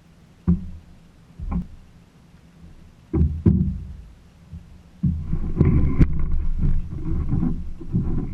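Kayak on the water: a few dull low knocks, then from about five seconds in a continuous rush of water and wind noise.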